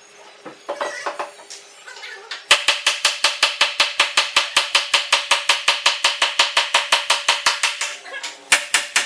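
Rapid, even series of sharp taps, about six a second, starting a couple of seconds in and pausing briefly near the end.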